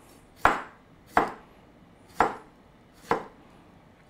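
Kitchen knife slicing pickles on a cutting board: four separate cuts, about one a second.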